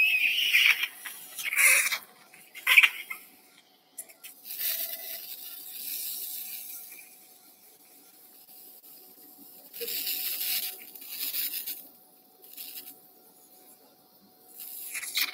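Intermittent bursts of hissing noise, some brief and some lasting about a second, separated by quiet gaps. A faint steady tone runs underneath.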